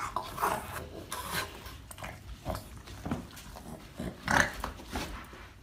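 A dog wriggling on carpeted stairs, its body rubbing on the carpet, with a string of short noises from the dog about once a second.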